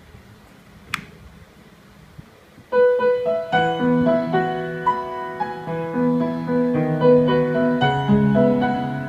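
Faint hiss with a single sharp click about a second in, then background piano music starts suddenly and plays on.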